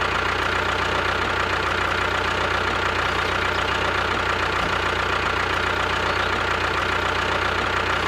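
Small engine idling steadily, with no change in speed.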